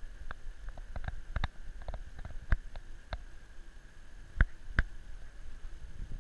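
Irregular clicks and taps of keys being pressed on a portable ultrasound machine's keyboard, two louder ones about two-thirds of the way in, over a steady hum of lab equipment.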